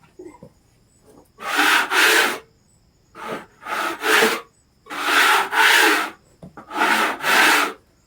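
A brush swept over a freshly sawn red oak slab to clear sawdust off the face: about nine scraping strokes, mostly in back-and-forth pairs, starting about a second and a half in.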